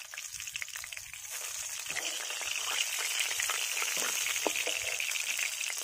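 Aar catfish steaks frying in hot mustard oil in a metal kadai: a steady sizzle with crackling spatters that grows louder about two seconds in.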